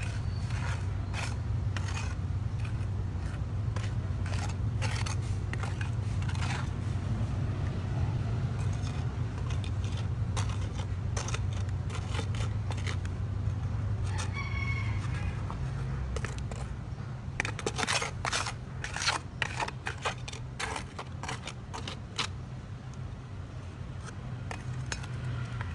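Repeated short scraping strokes over a steady low hum, thickest between about seventeen and twenty-two seconds in, with one brief pitched call about fourteen seconds in.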